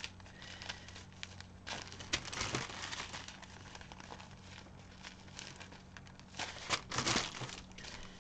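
Small plastic zip-lock bags of diamond-painting drills crinkling as they are handled and shuffled, in soft, irregular rustles that grow louder about two seconds in and again about seven seconds in.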